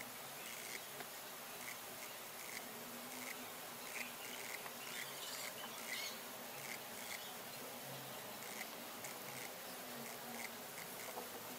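Faint, soft ticks and rustles of a steel crochet hook pulling cotton thread through stitches, about two a second at an uneven pace, over a steady low hiss.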